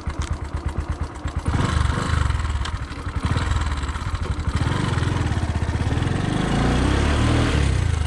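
Bajaj Discover 125's single-cylinder four-stroke engine idling with an even putter, then revved about a second and a half in as the motorcycle pulls away. Its note climbs steadily as it accelerates toward the end.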